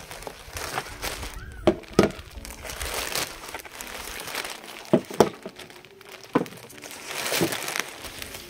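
Clear plastic bag and bubble wrap crinkling and rustling as they are handled and pulled open, with several sharp crackles, twice in quick pairs.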